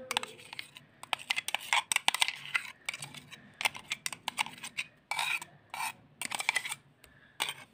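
Irregular clicks, taps and wet scrapes as spinach paste is scraped by hand out of a mixer-grinder jar into a steel bowl of flour.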